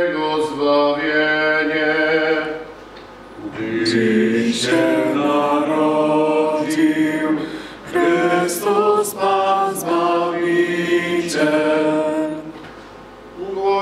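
A man's voice chanting a liturgical text unaccompanied, phrases held on long notes that step up and down in pitch, with short breaths between phrases about three seconds in and again near the end.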